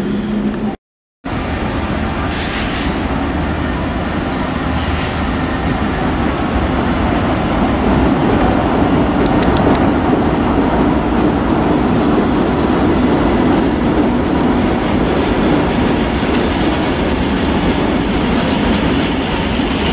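A train made up of several locomotives rolls past at moderate speed, with a steady rumble and wheels clacking over the rail joints, growing slightly louder past the middle. There is a brief dropout near the start.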